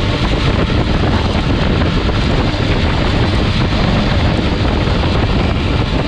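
Steady, loud wind rushing over a bike-mounted GoPro's microphone at racing speed, mixed with the running of the derny pacing motorbike just ahead.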